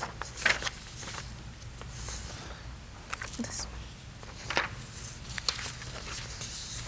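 Paper rustling as a photograph is handed over, and a person's footsteps on the floor, heard as a few scattered short clicks and rustles over a low steady room hum.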